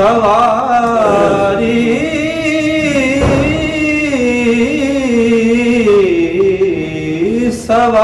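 A man singing a Punjabi devotional naat solo, without instruments, in long drawn-out wavering notes that break off briefly near the end.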